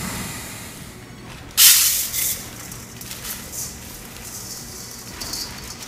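Dry brown rice poured from a plastic bag into a stainless steel bowl: a sudden hissing rush of grains about one and a half seconds in, then a few shorter trickles.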